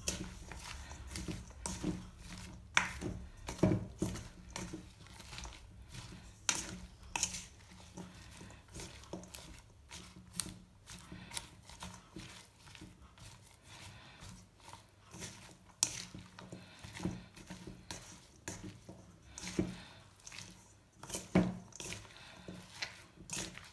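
Spatula stirring and tossing shredded cabbage and carrots in a stainless steel mixing bowl, with irregular clacks and scrapes against the metal.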